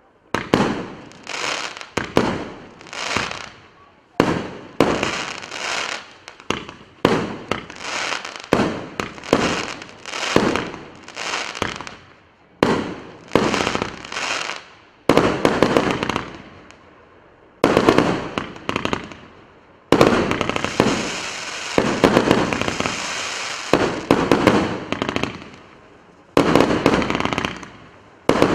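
Russkiy Feyerverk RS859 "Kurortny Roman" multi-shot firework battery firing shot after shot, about one or two a second. Each shot bursts with a crackling tail that fades. In the second half the crackling runs denser and more continuous.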